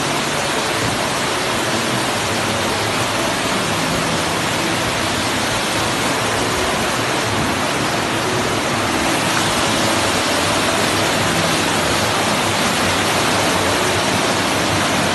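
Muddy floodwater rushing in a steady, loud torrent as it cascades down an indoor staircase, growing a little louder about nine seconds in.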